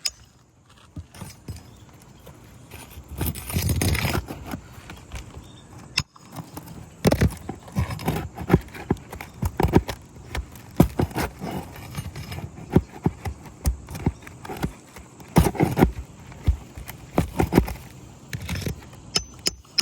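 Irregular hard knocks, clicks and scraping on asphalt shingles as shingles are worked and pried loose, with a longer rustling scrape about three to four seconds in.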